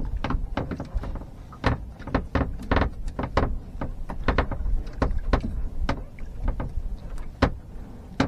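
Irregular knocks, taps and clatter, a few a second, over a low rumble, as a sabiki line with its catch is hauled in and handled.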